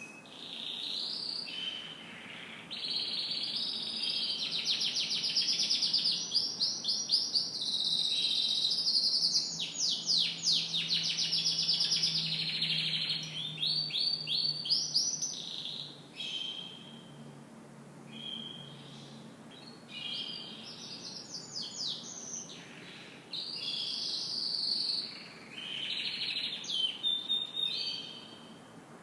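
Domestic canary singing: long, high-pitched song phrases made of rapid trills and rolling runs, broken by short pauses every few seconds.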